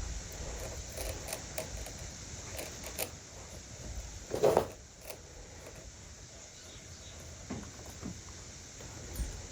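Hand work at a woodworking bench: small clicks and knocks of tools and wood being handled, with one louder sound lasting about half a second around the middle, then a few faint knocks.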